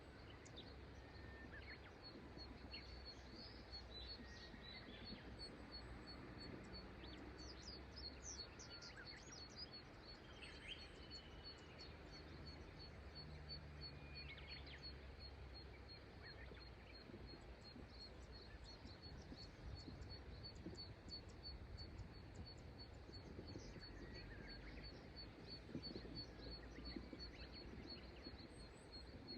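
Faint steady flow of a river, with scattered bird chirps and calls over it and a high, even ticking repeated a few times a second.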